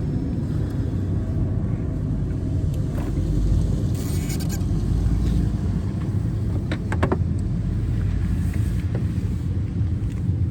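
A steady low rumble, with a brief hiss about four seconds in and a few quick sharp clicks about seven seconds in.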